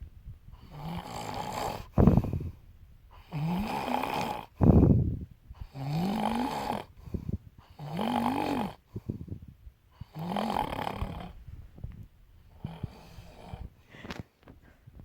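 Rhythmic snoring, one snore about every two seconds, each drawn-in breath about a second long and rising in pitch. Two sharp, loud puffs of breath come out about two and five seconds in, and the last snores are fainter.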